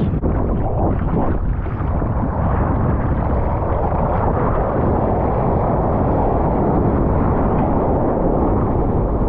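Breaking surf rushing and splashing around the camera at the waterline, a loud steady churn of whitewater with wind buffeting the microphone.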